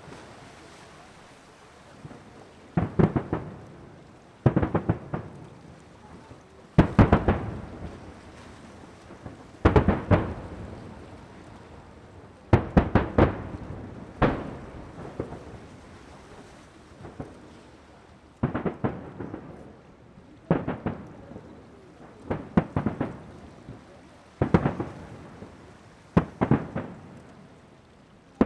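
Aerial fireworks shells bursting in quick volleys of several loud bangs, a volley about every two seconds, each followed by a rolling rumble and echo.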